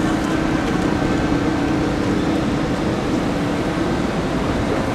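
Engines of a slow-moving police convoy, a Renault Trucks D diesel lorry and vans, running in street traffic with a constant low hum under steady traffic noise; no sirens sound.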